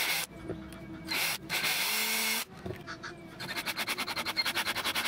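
Power drill boring a hole through a frozen rubber stopper with a twist bit, the drill running in short bursts with runs of rapid, even chattering pulses as the bit cuts the rubber.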